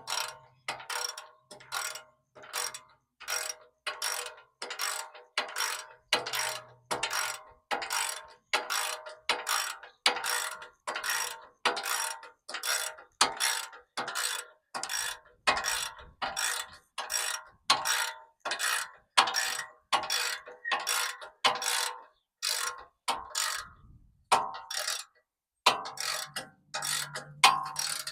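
Hand ratchet wrench clicking in a steady back-and-forth rhythm, about two strokes a second, as it turns a bumper mounting nut on a pickup frame, with a short pause near the end.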